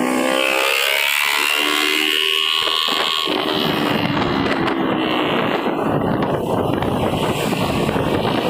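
Motorcycle engine running while riding, with wind rushing over the microphone. About three seconds in, the wind noise takes over and the engine sinks beneath it.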